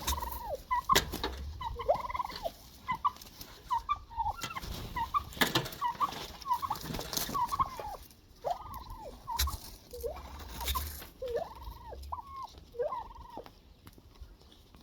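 Domestic turkeys gobbling and calling, a quick run of short rising-and-falling calls about once a second, with scattered sharp clicks.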